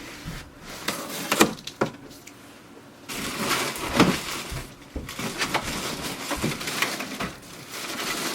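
Cardboard box and packaging being opened and handled by hand: a few separate knocks and scrapes, then about three seconds in a continuous rustling with many sharp clicks.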